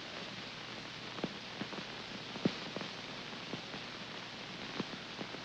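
Steady hiss of an old film soundtrack, with half a dozen faint clicks and crackles scattered through it.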